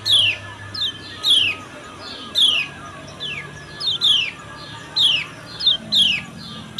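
Female lemon-bellied white-eye (kecial kuning) giving its 'ciak' call: a steady run of short, sharp chirps, each sliding down in pitch, about two a second, some coming in quick pairs.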